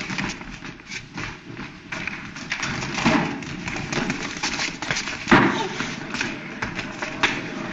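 Hurried running footsteps and repeated thumps and knocks as people rush through a courtroom, with the loudest moment a little past five seconds in.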